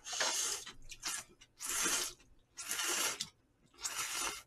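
Jjamppong noodles in spicy broth being slurped up close, in a series of about five long, wet slurps with short pauses between.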